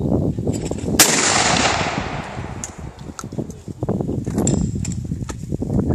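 A single shotgun shot at a clay target, about a second in, echoing briefly as it dies away.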